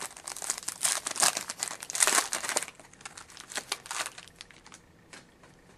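Plastic wrapper of a trading card pack being torn open and crinkled, a dense crackling for the first two and a half seconds, then scattered lighter crinkles that die away about four seconds in.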